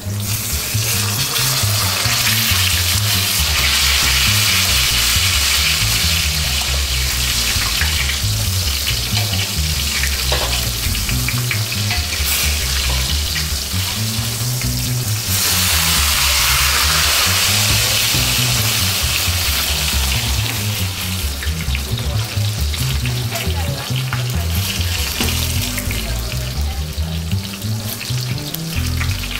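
Porterhouse steak frying in hot oil in a Finex cast-iron skillet: a steady loud sizzle that swells twice as the steak is turned with tongs. Background music with a bass line runs underneath.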